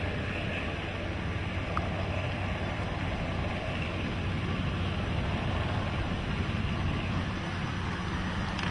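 Vehicle driving on a rough road: a steady engine and road rumble with some wind noise, unchanging throughout.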